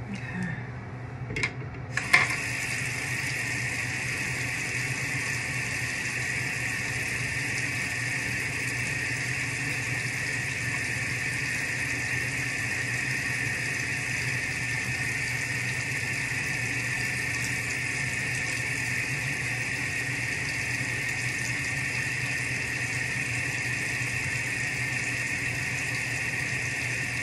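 Tap water running into a sink, after a few small knocks: the water comes on about two seconds in and then runs steadily.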